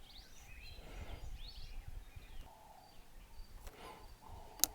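Quiet background with faint bird chirps in the first couple of seconds, and a single sharp click near the end.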